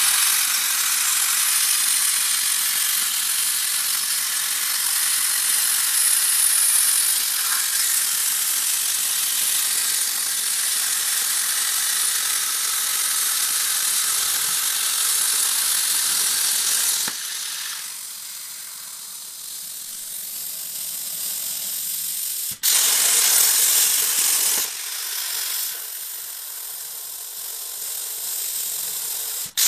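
CNC plasma cutter torch cutting through metal plate with a loud, steady hiss for well over half the time, stopping abruptly. A quieter hiss follows, broken by a second loud burst of about two seconds near the end.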